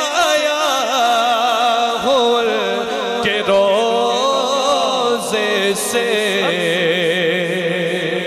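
A man singing a naat into a microphone in long, wavering, ornamented notes over a steady drone.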